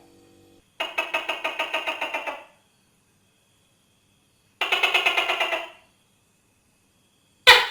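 Tokay gecko calling: two rapid rattling chuckles, each a quick run of about eight pulses a second, the first about a second and a half long, the second about a second. A loud 'to-kay' note with a falling pitch starts near the end.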